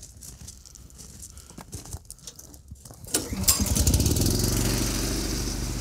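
A few faint clicks, then a Honda single-cylinder gasoline engine on an air compressor starts about three seconds in and settles into a steady run.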